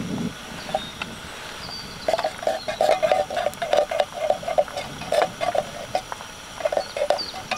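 Wooden spoon scraping and tapping inside an opened tin can to knock out the last canned peas: quick rattling runs of taps, several a second, from about two seconds in, pausing briefly and starting again near the end.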